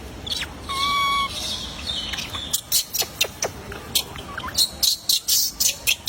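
Baby monkey crying, hungry and not being fed: one held, high-pitched cry about a second in, then from about halfway a quick, uneven run of short, sharp, high squeaks.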